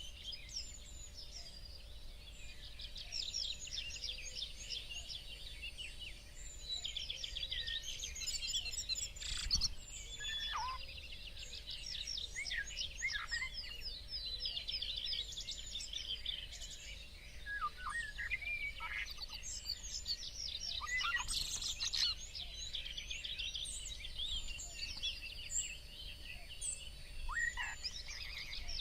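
Several songbirds chirping and singing over one another in a continuous chorus, full of rapid high twittering trills, with a few lower falling whistles. A single brief knock sounds about a third of the way in.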